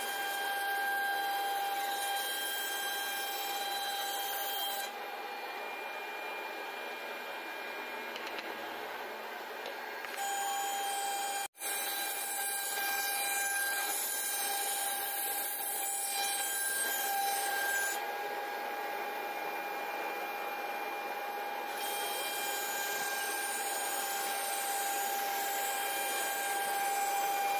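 CNC router's spindle running with a steady high whine as it cuts a design into the wood panel, heard in several short stretches that change suddenly, with a brief dropout near the middle.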